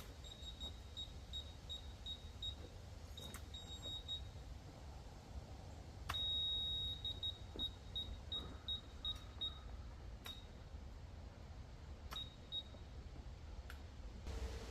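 Laser level receiver beeping in short, high-pitched, intermittent beeps, with one longer steady tone about six seconds in, as the level of the stand's base is checked. A steady tone marks a reading on level.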